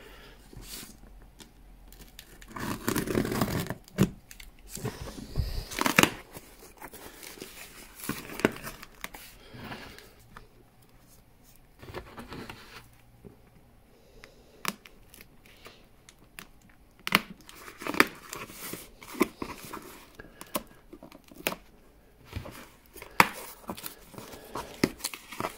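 A cardboard parcel being opened: a knife cutting its clear packing tape, the tape and cardboard tearing, and the flaps pulled back. Irregular bursts of tearing and crinkling with scattered sharp clicks.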